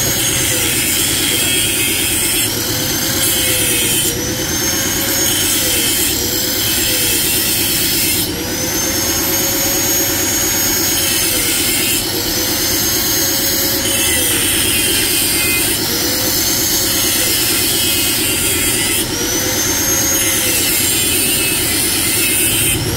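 Electric angle grinder cutting metal. Its whine keeps sagging and recovering every couple of seconds as the disc bites and eases off, over a loud grinding hiss.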